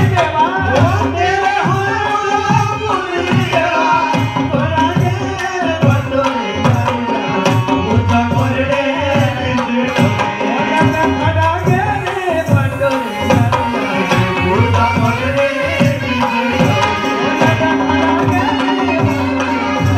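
Indian folk dance music played loudly: a drum keeps a steady, driving beat under a melody that bends up and down in pitch.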